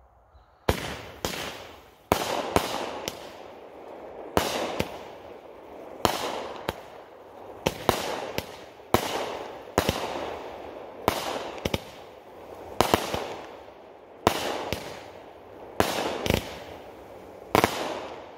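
A 16-shot, 200-gram consumer fireworks cake (Shogun Fireworks' Boy Oh Boy Blue) firing, starting under a second in, about one shot every one to two seconds. Each shot is a sharp launch thump followed within about half a second by the bang of the break, with crackling glitter filling the gaps. The shells break low.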